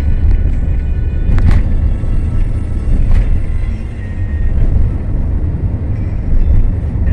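Steady low road and engine rumble inside a moving car's cabin at cruising speed, with a couple of faint knocks.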